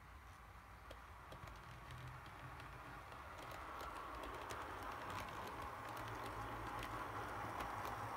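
OO gauge model DMU running over a Peco SL90 double slip: a motor hum that grows louder as the train approaches, with quick irregular clicking of wheels over the pointwork from about three seconds in.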